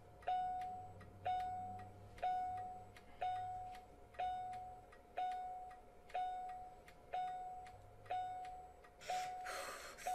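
Hospital heart monitor beeping about once a second, a short single-pitched beep each time. A hiss of noise comes in near the end.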